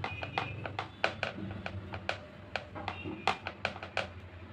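Hand patting and pressing a soft potato-and-bread dough flat on a plastic chopping board: irregular light taps, two or three a second.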